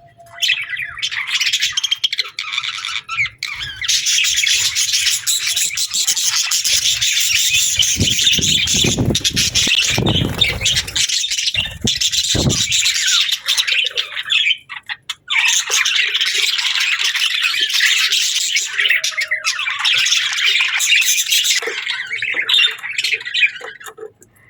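Budgerigars chattering and squawking in a dense, continuous warble, dipping briefly in the middle. A low rumble runs underneath for a few seconds around the middle.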